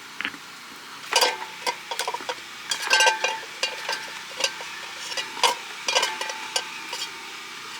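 Irregular metallic clinks and taps of hand tools and small metal parts being handled during an oil change, some with a short ring.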